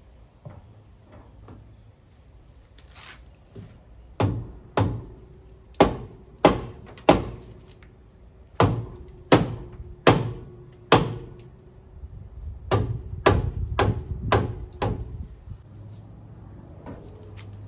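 Dead-blow hammer striking a seized rear brake drum of a 1963 Studebaker Lark, about fifteen hard blows in three runs, each a heavy thunk with a brief metallic ring from the drum. The drum is locked up with rust after long sitting and is being beaten loose.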